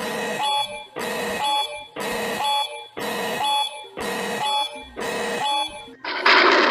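Emergency-alert alarm tone pulsing about once a second, six pulses of several steady tones at once. About six seconds in it gives way to a loud rush of noise.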